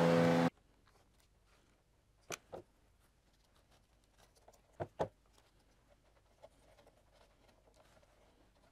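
A loud steady hum stops abruptly half a second in. Then light handling noise, with two pairs of small clicks about two and five seconds in, as thin wood trim strips are pressed into place on a scale-model frame.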